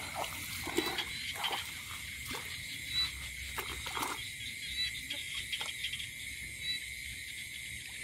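Steady chorus of night insects, a continuous high trilling hum. Scattered short rustles in the grass come through during the first half.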